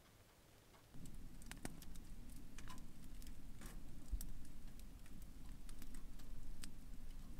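Wood stove fire burning, with a low rumble and scattered irregular crackles and snaps starting about a second in.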